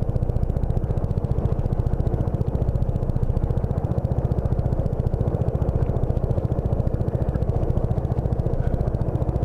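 Motor scooter engine running steadily, with a fast, even pulsing beat.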